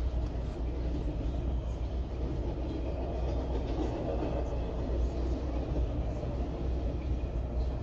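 Freight train of autorack cars rolling past: a steady, unbroken rumble of wheels on the rails.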